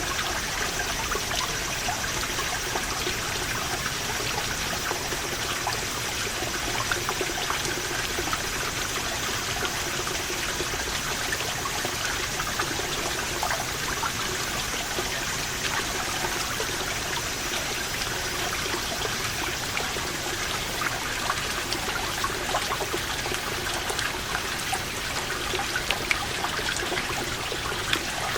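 Water seeping out of a moss-covered rock wall and falling in many small drips and trickles, a dense patter of drops. Cicadas sing behind it as a high steady drone, which fades out about two-thirds of the way in.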